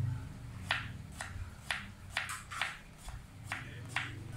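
Kitchen knife cutting vegetables on a chopping board, a short crisp stroke about twice a second.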